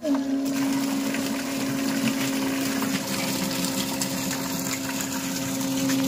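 Homemade 12-volt water pump driven by a 775 DC motor, running with a steady hum, while water gushes and splashes from its outlet pipe.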